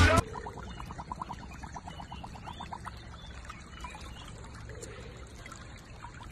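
Water trickling and gurgling in a shallow muddy puddle, with a quick run of soft regular pulses, about seven a second, for the first three seconds.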